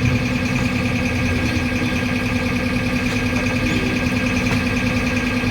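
Steady hum of a running motor, holding one even pitch throughout.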